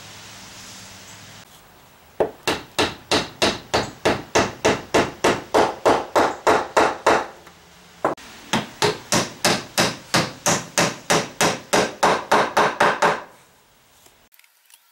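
Wooden mallet tapping glued wooden dowels down into holes in a maple board. It comes in two runs of quick, even blows, about four a second, with a short pause between them.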